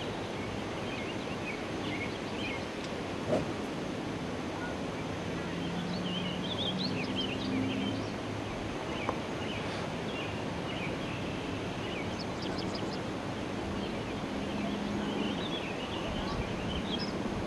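Outdoor ambience: a steady background hush with birds chirping now and then, and a single short tap about three seconds in.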